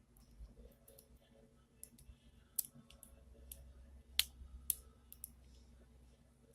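Scattered sharp clicks and taps of small tools and parts against an opened iPhone 7 Plus as a replacement charging port is lined up and seated in its frame. The three loudest clicks fall a little past the middle.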